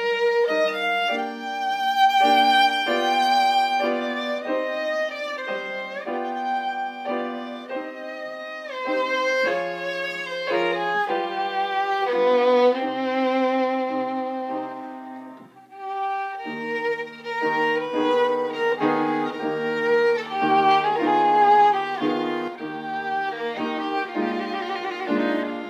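Violin playing a melody of held notes with vibrato, over lower accompanying notes, with a brief break between phrases about fifteen seconds in.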